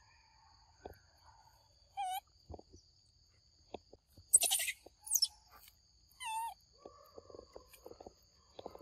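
Steady high-pitched insect drone with several short wavering chirps, and one loud harsh squeal about four seconds in.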